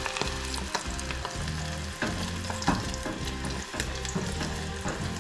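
Battered squid tentacles deep-frying in hot oil: a steady sizzle dotted with small crackles and pops. The popping comes from water left on the squid.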